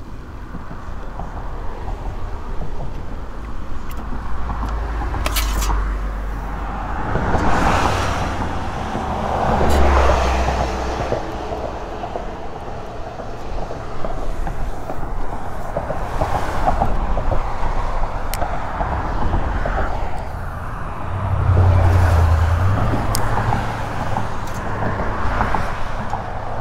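Road traffic, trucks among it, passing on the bridge close behind: vehicles going by one after another, each swelling and fading, with the loudest passes about ten seconds in and again a little past twenty seconds.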